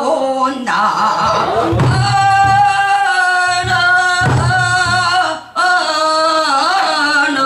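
A woman singing Boseong-school pansori, holding long notes with a strong wavering vibrato, with a brief break for breath about five and a half seconds in.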